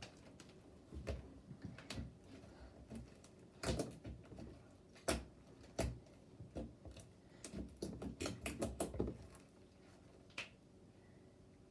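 Handling noises: a run of irregular sharp clicks and soft knocks, thickest from about three to nine seconds in, then a single click near the end.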